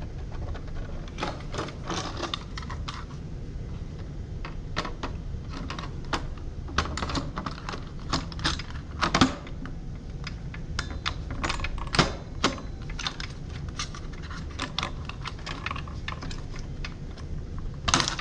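Irregular light clicks and clacks of a JVX-1000 LED display module being handled and fitted back into its cabinet, with its latch or clips snapping.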